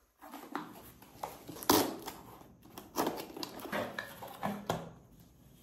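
A parcel being opened and its contents handled by hand: scattered taps, clicks and short rustles, the loudest a little under two seconds in.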